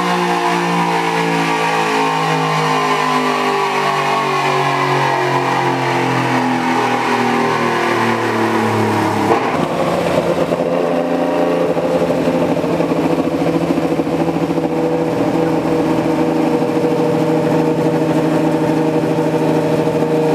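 Yamaha MT-09's three-cylinder engine through an aftermarket Jeskap exhaust with a titanium MegaBlue tip. For about nine seconds the engine note falls steadily in pitch as the revs drop. After a sudden change it runs at a steady pitch.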